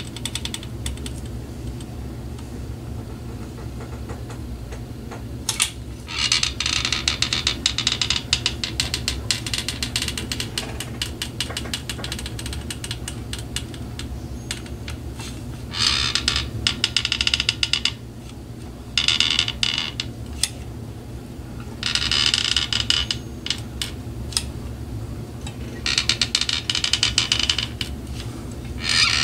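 Repeated bouts of rapid, scratchy scraping, each lasting one to five seconds, over a steady low hum.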